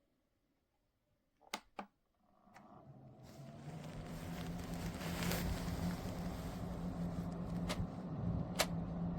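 Two clicks, then a small electric fan spins up to a steady whirring hum and keeps running, with a few light clicks later on.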